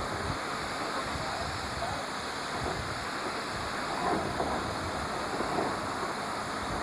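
Steady rushing hiss in the cab of South African Railways Class 25NC steam locomotive 3501, an engine converted to burn oil.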